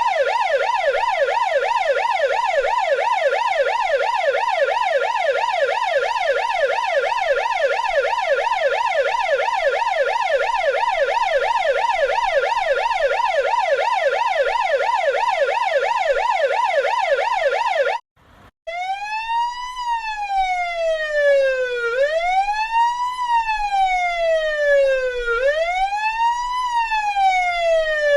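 Russian police siren in a fast yelp, its pitch swinging up and down several times a second. About eighteen seconds in it cuts out for a moment and changes to a slow wail, which rises quickly and falls slowly about every three seconds.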